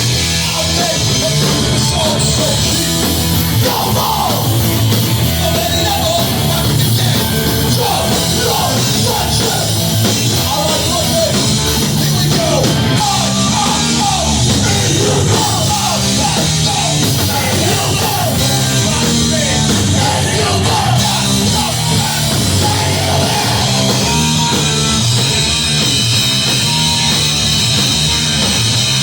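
Hardcore band playing live and loud, with yelled vocals over guitars and drums.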